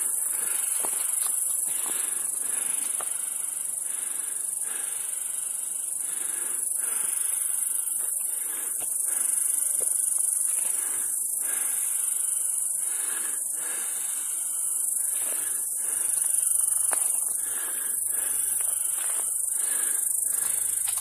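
Cicadas singing all around: a steady, high-pitched whine, with a fainter rasping buzz beneath that pulses about once a second.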